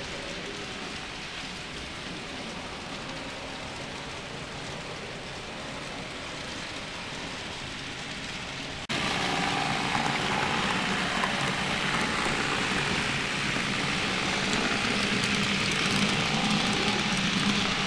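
N-scale model trains running on layout track: a steady hiss and rattle of small wheels on rail with a low motor hum. It steps up suddenly in loudness about halfway through.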